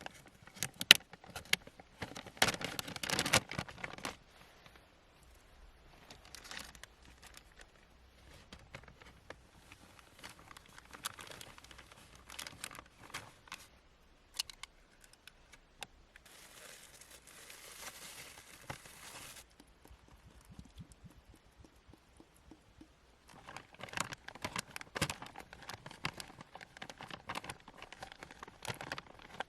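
Crinkling and rustling as something is handled, with scattered small clicks and knocks. A louder crinkly burst comes a few seconds in, and a steady hiss lasts about three seconds midway. Near the end there is a dense run of crackly handling noise.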